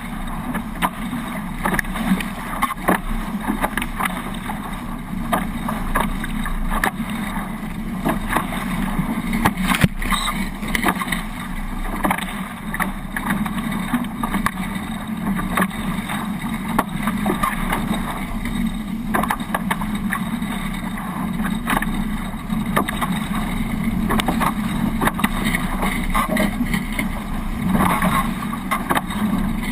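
Hobie 18 catamaran under sail: a steady rush of wind and water, with scattered light knocks and one sharper knock about ten seconds in.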